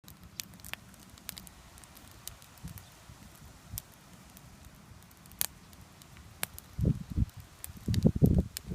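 Campfire crackling with scattered sharp pops, joined about seven seconds in by low, uneven rumbling bursts that grow louder toward the end.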